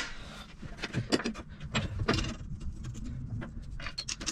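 Scattered light metallic clicks and knocks as steel brake-linkage parts are handled and fitted by hand on a steam locomotive chassis, busiest in the first couple of seconds.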